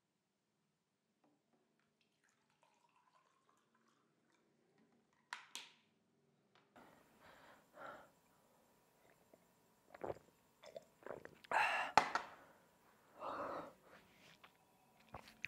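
Near silence at first, then a man swallowing water from a glass and breathing hard in uneven, shaky breaths, with a sharp click about twelve seconds in.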